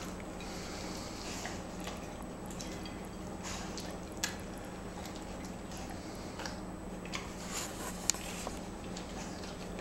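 Labrador Retriever licking a plate clean: wet licking and smacking with a few sharp clicks of tongue or plate, over a steady low hum.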